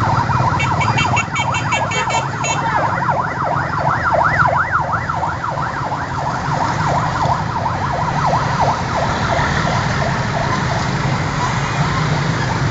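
Several vehicle sirens sounding at once in fast up-and-down sweeps over the low rumble of slow-moving traffic. The sirens grow fainter toward the end.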